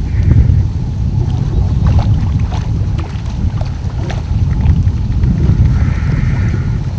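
Wind rumbling on the microphone out on open water, with a few faint knocks and a brief faint high buzz near the end.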